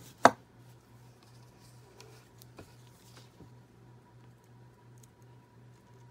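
A Hot Wheels Beach Bomb toy car pressed down hard on a tabletop, giving one sharp snap, then a few faint light ticks as small parts are handled. A faint steady low hum runs underneath.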